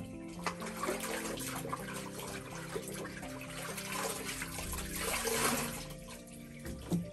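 Water sloshing and splashing in a filled bathtub as clothes are worked and squeezed by hand, with soft background music underneath.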